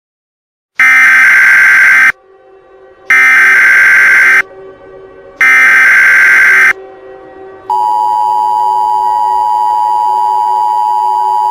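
Emergency Alert System header tones: three loud bursts of harsh digital data buzz, each over a second long with about a second between them. After a short pause comes the steady, jarring two-tone EAS attention signal, announcing an Emergency Action Notification.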